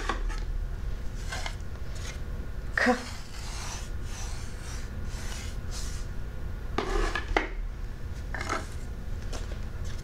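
Wooden sandpaper letter boards being handled on a tabletop: a series of short scrapes and light taps as boards are slid, lifted and set down.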